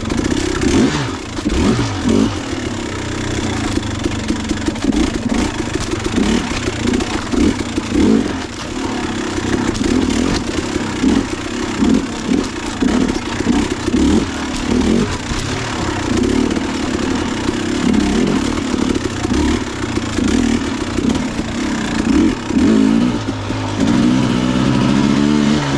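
Dirt bike engine revving in short, uneven surges as the throttle is opened and shut again and again over rough creek-bed ground, with some clatter; near the end the revs glide more smoothly.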